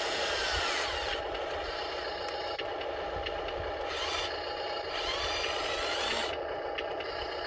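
Small electric motors and gearboxes of an RC model excavator whirring, their whine rising and falling in pitch several times as the controls are worked. Scraping stretches come and go over them.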